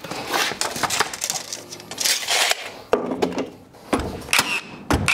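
Irregular wooden knocks, clatter and short scrapes of timber and tools being handled, with a couple of sharper knocks near the end.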